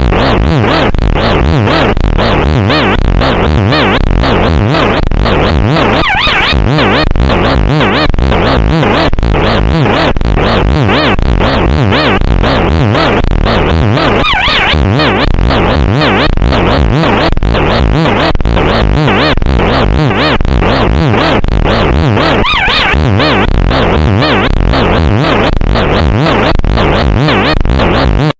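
Loud, harshly distorted electronic alarm in the style of an Emergency Alert System alert: a dense, rapidly pulsing, noisy blare with no clean steady tone, its pattern repeating about every eight seconds.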